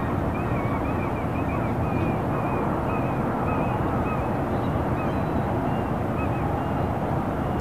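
Harbour ambience: a steady low rumble of distant road traffic with a faint steady hum, and a run of short, repeated bird calls over it that thin out toward the end.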